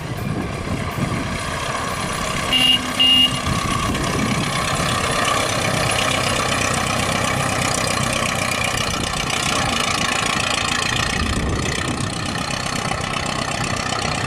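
1926 Ford Model T's original four-cylinder engine running steadily as the car drives slowly. Two short beeps sound about three seconds in.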